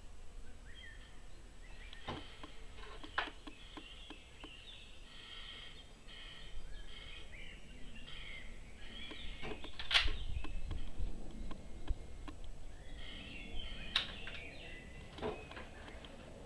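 A few sharp clicks and knocks as a QB 78 CO2 air rifle is handled and its bolt worked to load the next pellet, the loudest two about ten and fourteen seconds in, over steady chirping of birds.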